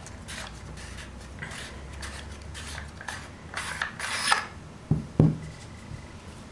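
The barrel of a Tippmann TiPX paintball pistol being unscrewed by hand, its threads giving a series of short, repeated scraping rasps. About five seconds in come two sharp knocks on the table, the loudest sounds here.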